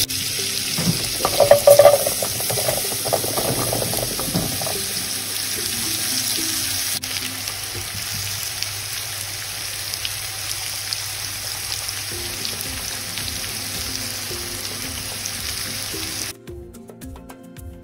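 Butter and oil sizzling steadily in a hot pan, louder for the first few seconds. The sizzle cuts off suddenly near the end, leaving faint background music.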